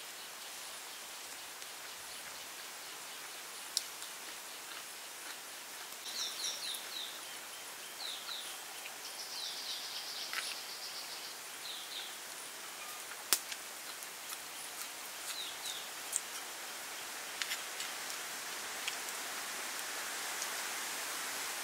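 Outdoor woodland ambience: a steady hiss that grows a little louder toward the end, with a small bird chirping in short quick runs of falling notes, mostly in the middle, and a few sharp clicks of a metal spoon on the bowl.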